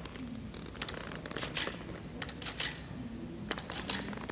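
Intermittent rustling and light clicks in short clusters, like material being handled.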